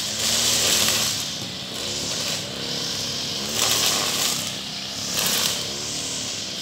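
Petrol brush cutter running, its engine pitch rising and falling again and again as it is swung through the grass. Each swing brings a burst of hissing from the cutting line going through grass and leaf litter. It is being worked slowly because the ground under the trees is full of stones.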